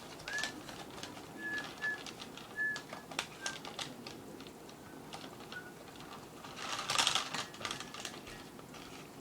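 Several short, high bird chirps, spaced irregularly, over dry crackling and clicking from reed and bulrush being worked into a gourd basket. A denser rustle of the reeds about seven seconds in is the loudest moment.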